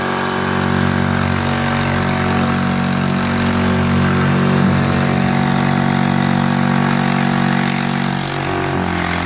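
Kings Thumper MK1 12-volt air compressor running steadily on a test run after being stripped, cleaned of sand and greased; it runs properly, with its note shifting slightly near the end.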